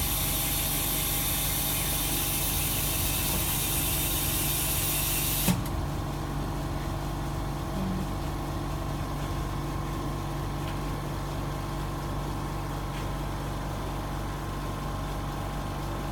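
Laminating machine's vacuum hissing steadily, cut off with a click about five and a half seconds in; the machine's steady mechanical hum carries on underneath.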